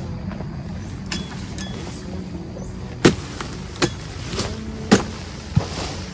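Sharp hacking strikes of a long-poled harvesting blade chopping into an oil palm frond stem, about five hits spaced half a second or so apart in the second half.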